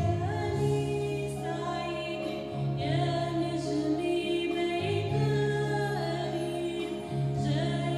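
Mixed choir of men's and women's voices singing a slow Christmas hymn in long held chords that change about every two seconds.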